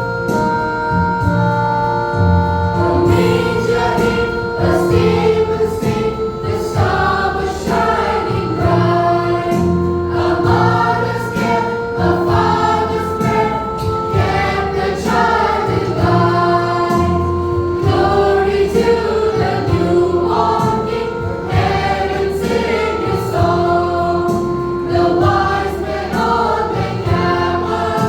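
A church junior choir singing a song with instrumental accompaniment, a bass line and a steady beat. The accompaniment plays alone for about the first three seconds before the voices come in.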